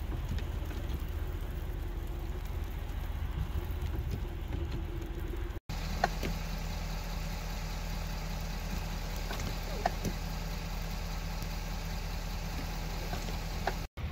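Steady low rumble of a car engine running, heard from inside the vehicle, with a low hum and a few faint clicks. The sound cuts out for an instant twice.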